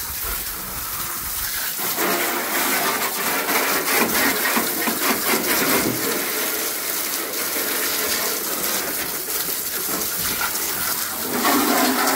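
Water from an open garden hose spraying into a car's engine bay, the stream splashing and spattering over the engine and surrounding sheet metal as degreaser is rinsed off. It gets louder about two seconds in.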